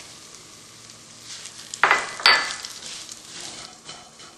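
Crushed peanuts poured into a pan of hot oil and seeds, sizzling softly; about two seconds in, two sharp knocks, then a spatula stirring and scraping them around the pan.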